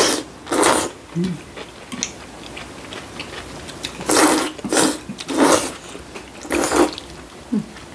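People slurping kalguksu, knife-cut wheat noodles in broth: a short slurp about half a second in, then a run of four slurps between about four and seven seconds.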